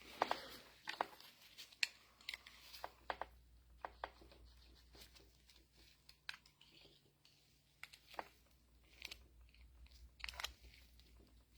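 Irregular light clicks and knocks, a dozen or so, from the removed hydraulic pump of a mini excavator being handled and turned over to find how it comes apart.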